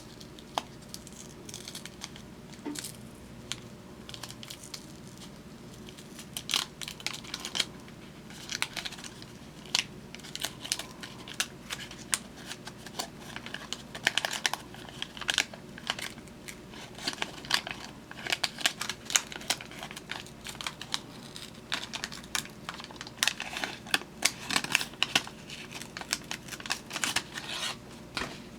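Wax paper pack wrappers crinkling and baseball cards being handled. Quick, irregular rustles and light snaps come in clusters.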